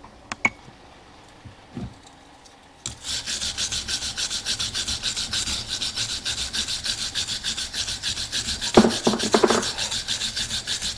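Rapid back-and-forth scrubbing of a freshly cast copper coin by hand, about four strokes a second, beginning about three seconds in. A few louder knocks come near the end.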